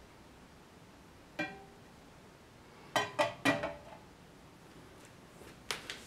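Sharp metallic clicks with a short ringing tail from a Chinese Zippo-style petrol lighter being opened and lit: one clink about a second and a half in, three quick ones about three seconds in, and a lighter click near the end.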